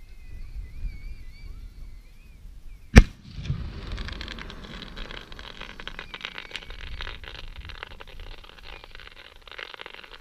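Fireworks: a warbling whistle fades out over the first two seconds, then one sharp bang about three seconds in, followed by several seconds of dense crackling.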